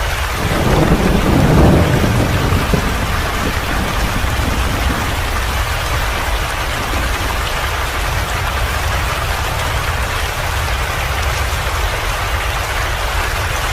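Steady rain falling, an even hiss, with a low rumble swelling and fading in the first three seconds.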